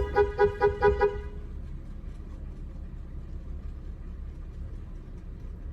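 Car horn tooted in a rapid stutter of about six short beeps, roughly five a second, stopping after about a second. After it only a steady low rumble from the car remains.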